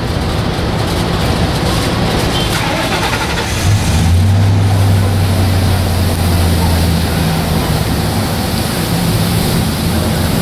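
Vehicle engine idling, a steady low hum, with a deeper, louder drone coming in about four seconds in and dropping away about three seconds later.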